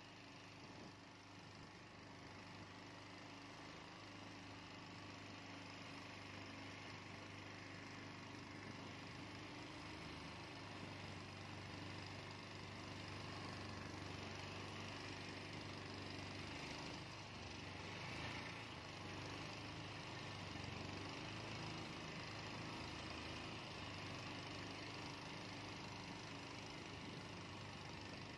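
A faint, steady low motor hum with a hiss above it, slowly growing a little louder.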